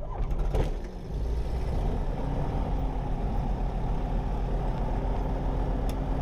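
Tecnam P2008's Rotax 912 four-cylinder engine starting, heard from inside the cockpit: the starter cranks the propeller briefly, the engine catches about a second in and settles into a steady idle.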